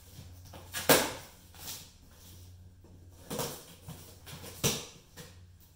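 Knife slicing through packing tape on a cardboard box: a few short, sharp rasps and scrapes, the loudest about a second in.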